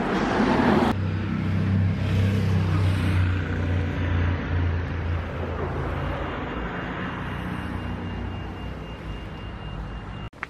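Cars passing on a wet road: a loud rush as one goes by close at the start, then a low, steady engine hum that slowly fades away. The sound cuts off abruptly near the end.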